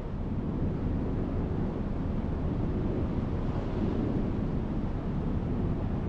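Steady wind buffeting the microphone, a continuous noise strongest in the low end.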